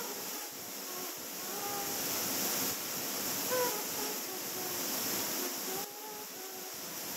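Steady rushing noise of a moving cruise ship's churning wake, mixed with wind.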